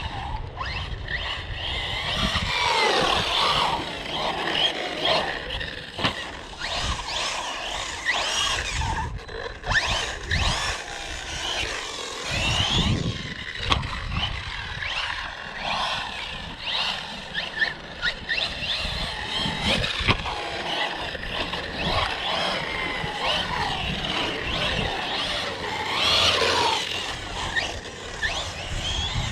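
Electric RC car driving on wet concrete: its motor whine rises and falls over and over as it speeds up and slows, with tyres scrabbling and scraping on the surface.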